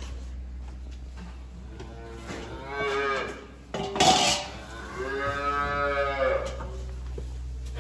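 Calves mooing twice, a short call about two and a half seconds in and a longer one about five seconds in, with a sharp clank between them.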